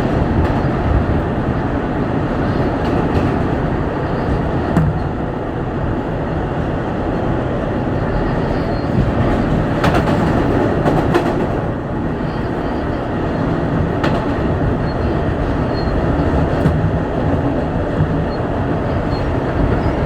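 Steady rumble of an R160 subway car's wheels on the rails, heard from inside the car while it runs between stations, with a few sharp clicks as it passes over rail joints. No air-conditioning fan can be heard under it.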